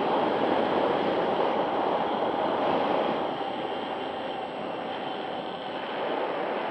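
Steady rush of wind and propeller noise picked up by a camera on board a twin-motor foam RC plane in flight, its two Lumenier 2206 2350 kV brushless motors driving 6x4 propellers. The rush eases a little midway and picks up again near the end.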